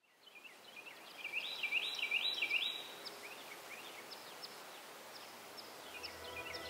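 Birds singing and calling, fading in from silence. One bird repeats a quick rising call about four times, among many short chirps from others. Soft music with held tones comes in near the end.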